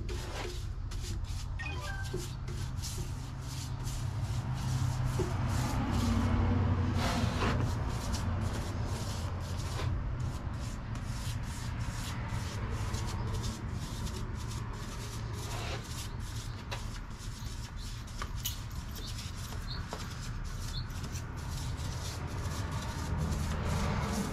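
A paintbrush rubbing polyurethane onto a carved wooden board, with many light clicks and knocks of handling over a low steady hum.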